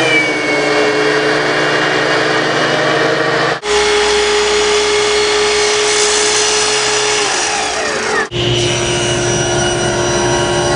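Three power tools in turn: a DeWalt benchtop thickness planer running as a board feeds through, then a Festool sliding miter saw running through a crosscut and winding down with a falling whine, then a table saw running through a cut. Each tool's sound starts and stops abruptly.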